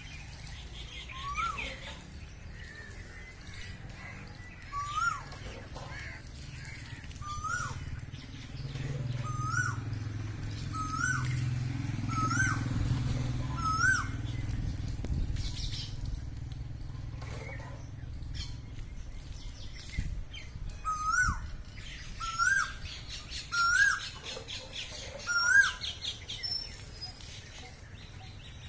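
A bird calling one short whistled note over and over, each rising and then dropping, about once every second or two, with a pause midway, over fainter chirping of other birds. A low rumble swells in the background through the middle.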